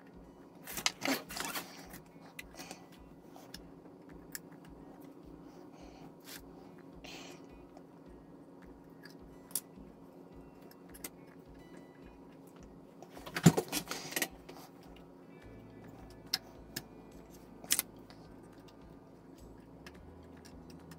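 Soft background music with a steady beat, over hands handling a plastic model and small tools on a workbench: a short clatter about a second in, a louder clatter around thirteen seconds in, and scattered small clicks.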